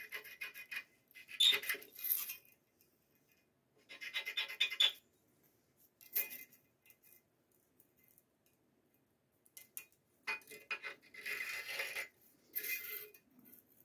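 Metal scriber scratching marking lines into a steel plate, with a steel rule shifted and set against the metal; several short scraping strokes with pauses between them.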